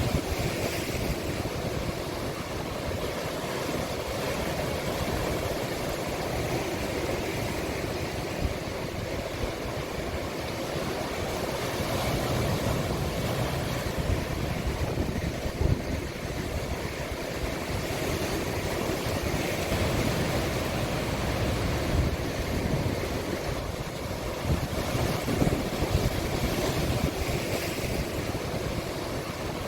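Sea waves breaking and washing on the shore in a steady, continuous surge, with wind buffeting the microphone in low rumbles.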